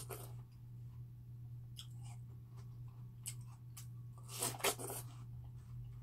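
Close-miked bite into a wedge of crisp watermelon and chewing. A cluster of juicy crunches about four and a half seconds in is the loudest sound, with a few small mouth clicks before it and a low steady hum underneath.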